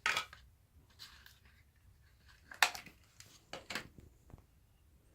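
Homemade slime being picked up and kneaded by hand: five or so short, separate handling noises, the loudest about two and a half seconds in.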